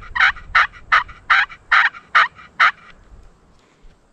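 Push-button turkey call worked in an evenly spaced string of yelps, about seven notes at roughly two and a half a second, stopping a little under three seconds in. It is hen-turkey calling meant to make a gobbler answer.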